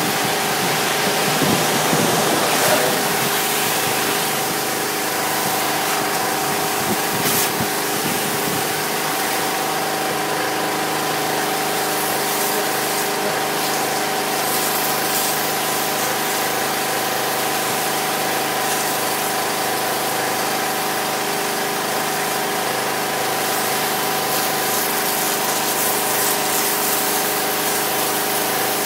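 A motor-driven machine running steadily: a constant hum with several fixed tones under an even hiss, with a few knocks and rustles in the first several seconds.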